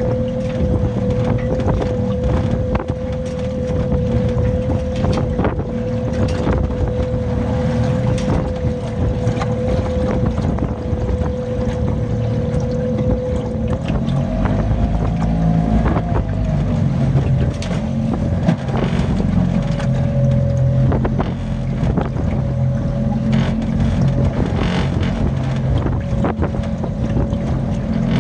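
Strong gusting wind buffeting the microphone, with a steady hum underneath that wavers and settles slightly higher about halfway through, and frequent short knocks.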